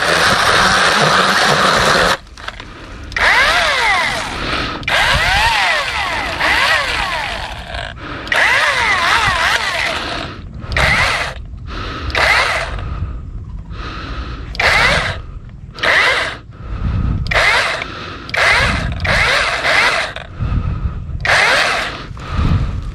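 KEELAT 8-inch cordless electric mini chainsaw cutting steadily for about two seconds, then stopping suddenly. After that it runs in many short bursts, its motor pitch rising and falling as it speeds up and slows; toward the end the bursts come about once a second.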